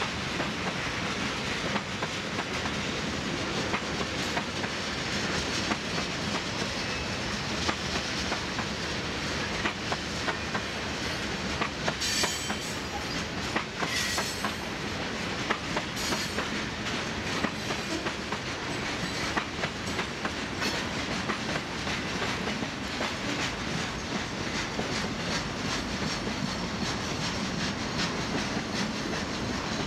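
Freight cars of a Union Pacific mixed freight train rolling past, their steel wheels clicking steadily over the rail joints, with a few brief high-pitched squeals a little before the middle.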